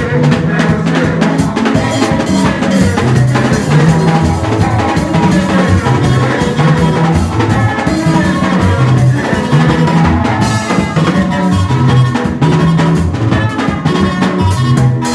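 Band music: a drum kit playing a busy, steady beat over a bass line that steps between notes.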